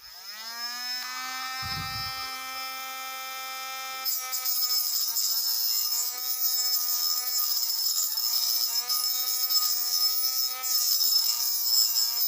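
Homemade mini grinder's small electric motor spinning up with a rising whine, then running steadily. From about four seconds in it grinds a workpiece: a high hissing rasp joins and the whine sags in pitch under load, again and again.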